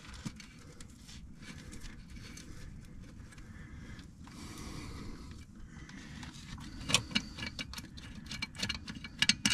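Light metal clinks and scraping as clutch bolts are handled and started by hand, with a quick run of sharp clicks in the last few seconds, over a low steady hum.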